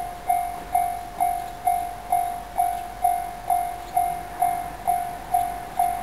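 Japanese railway level-crossing warning bell ringing a single clanging tone about twice a second, each strike fading before the next: the crossing's alarm, signalling that a train is approaching.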